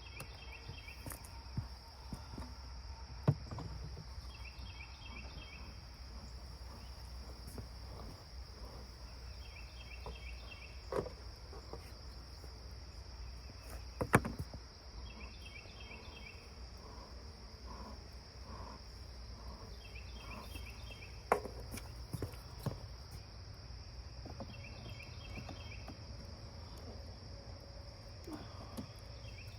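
Outdoor insect chorus: a steady high-pitched insect drone, with a short burst of cricket-like chirps repeating every few seconds. A few sharp knocks break in now and then.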